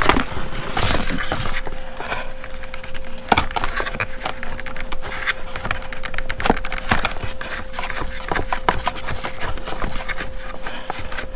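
Hands working parts loose from packaging, unscrewing the ratchet straps' tie-down pieces from their mounts in the box: a busy run of clicks, knocks and scrapes, over a faint steady hum.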